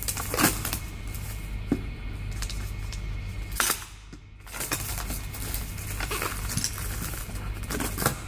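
Clear plastic wrapping crinkling and tearing as it is pulled off a hardcover book safe, in irregular crackles, loudest about half a second in and again past the midpoint, over a steady low hum.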